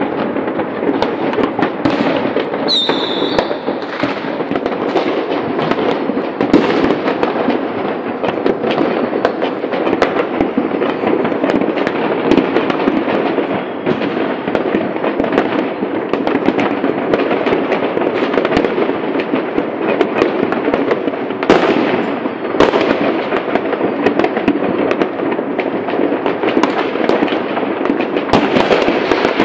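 New Year's Eve fireworks going off in many places at once: a constant overlapping crackle of pops and bangs. A falling whistle comes about three seconds in, and a few louder bangs stand out, one near the middle and two close together about two-thirds of the way through.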